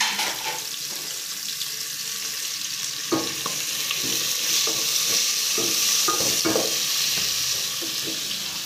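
Chopped onions sizzling in hot oil in a cooking pot, with a spoon stirring and scraping against the pot now and then. The sizzle grows louder about four seconds in.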